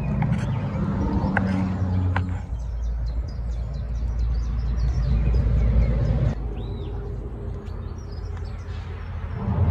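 A low, steady engine rumble, loud for the first six seconds, suddenly dropping, then swelling again near the end, with small birds chirping above it.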